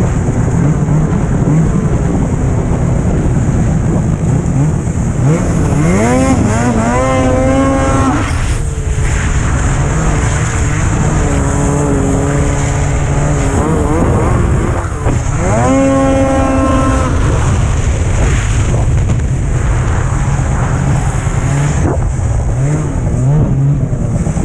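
Snowmobile engine running at speed, with wind and track noise throughout. Its pitch rises twice as the throttle is opened, about six seconds in and again about fifteen seconds in.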